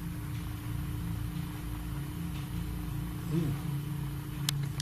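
Quiet room tone: a steady low hum with a faint steady tone above it. About three and a half seconds in there is a brief wavering tone, and near the end a single sharp click.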